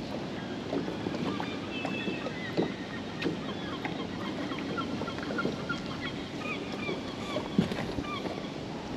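Birds calling in short repeated notes over a steady wash of water and wind, with a few sharp knocks, the loudest a little past seven and a half seconds in.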